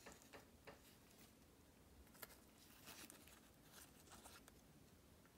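Near silence, with a few faint scattered rustles and light taps as a wet paper filter full of iron oxide sludge is lifted and handled.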